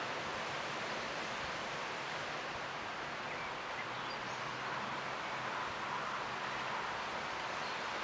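Tree leaves rustling steadily in the wind, a continuous even hiss.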